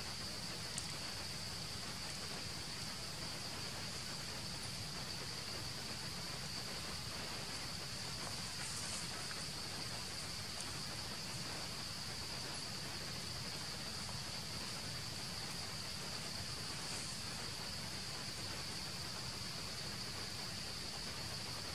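Steady, high-pitched drone of insects over a constant background hiss, with a few faint clicks.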